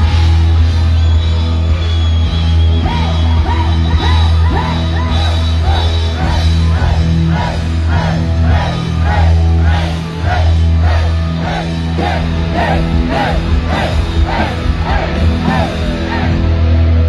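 Heavy metal band playing live at high volume, with a heavy, steady low end and a melodic figure that repeats about twice a second through the middle, mixed with yells from the crowd.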